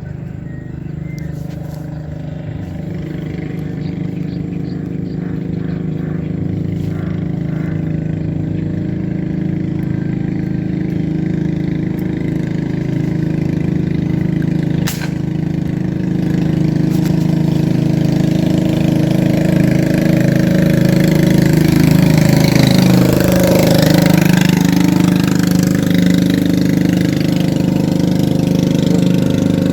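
A motor engine running steadily, growing gradually louder throughout.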